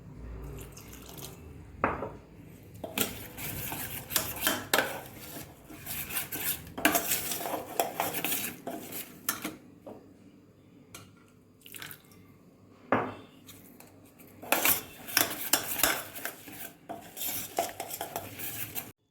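A spoon stirring a thick batter of powdered flattened rice and coconut milk in a bowl, scraping and clinking irregularly against the bowl, with short pauses; it cuts off suddenly near the end.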